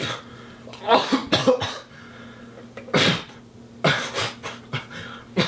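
A man coughing in a series of short, sudden bursts, about seven over a few seconds, sputtering as though choking on liquid in his mouth.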